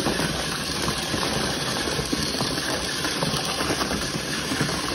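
A boxful of small battery-powered self-righting toy cars running at once: a steady whir of their tiny motors with many small ticks and knocks as they bump into each other and the cardboard box.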